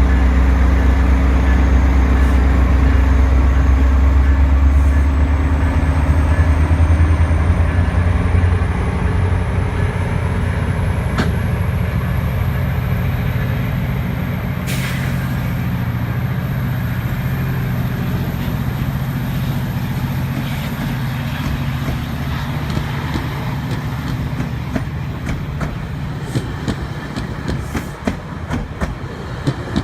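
GO Transit diesel commuter train moving through the station. The locomotive's engine drones loud and low for the first several seconds, with a high whine slowly rising in pitch, then eases off as the cars roll by. Toward the end the wheels click more and more over the rail joints.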